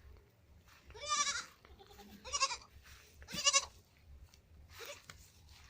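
Goats bleating: three loud, quavering bleats about a second apart, then a fainter call near the end.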